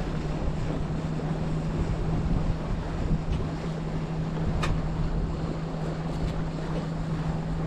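Wind buffeting a mast-mounted camera's microphone aboard a sailing yacht under sail, with water rushing past and a steady low hum. A single short tick about four and a half seconds in.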